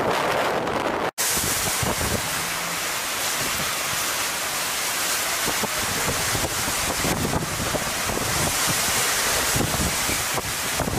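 Hurricane wind and heavy rain: a steady rushing hiss, with wind buffeting the microphone. The sound drops out for an instant about a second in, then comes back brighter.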